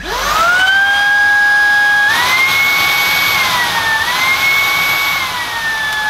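Shark IZ201UK cordless vacuum cleaner's motor switched on and whining up to speed, then stepping up to a higher pitch about two seconds in as the 'pull for max power' boost trigger is pulled. It dips back briefly just after four seconds, rises again, and eases down near the end.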